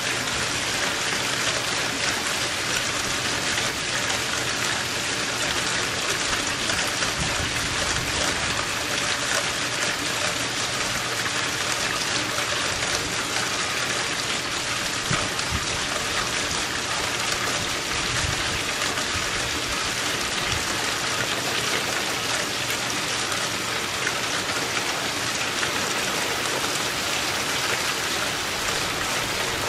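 Heavy rain pouring steadily, drops pelting the surface of a swimming pool and a lawn in an even, unbroken hiss.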